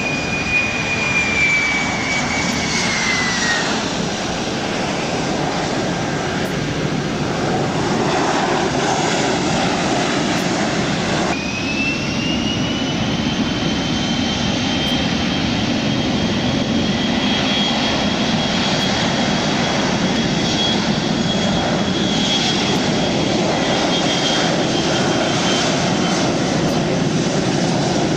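Boeing 737's CFM56 turbofan jet engines over a steady rumble as the airliner lands, the high whine falling in pitch over the first few seconds. After an abrupt change the whine rises and holds high as the engines spool up on the landing roll, typical of reverse thrust, then fades near the end.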